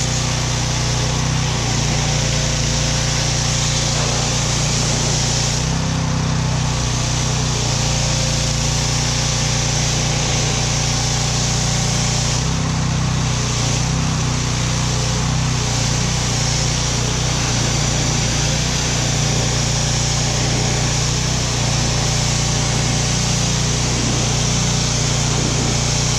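Pressure washer running steadily, its small engine humming under the loud hiss of the water jet spraying a snowmobile's hood. The spray lets up briefly twice, about six and thirteen seconds in.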